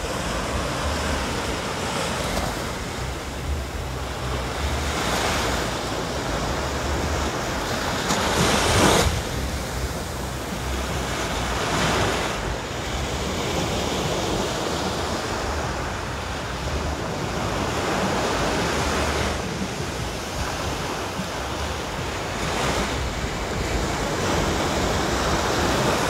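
Small waves breaking and washing up a sandy beach, the surf swelling every few seconds, loudest about nine seconds in.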